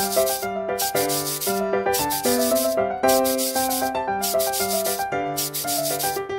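Permanent marker scratching across paper in a series of short strokes, over background piano music.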